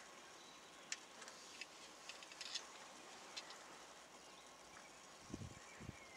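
Near silence: faint outdoor ambience, with a few faint high ticks in the first few seconds and two soft low thumps near the end.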